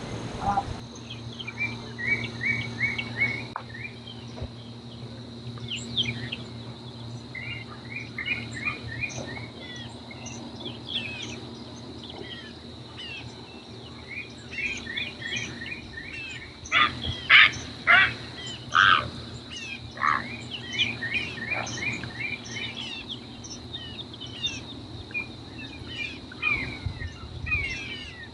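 Wetland wildlife chorus of birds and frogs: short chirping calls repeat in quick runs of four or five, over a steady high-pitched drone and a low steady hum. A cluster of louder calls comes a little past halfway.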